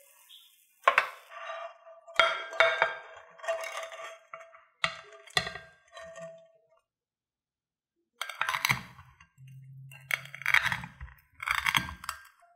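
Frying pan and spatula clinking and scraping against a plate, with a short ringing tone, as the crisp fried instant-noodle pancake is slid out. Then a knife crunches through the crispy noodle crust three times, each cut ending in a dull knock on the plate.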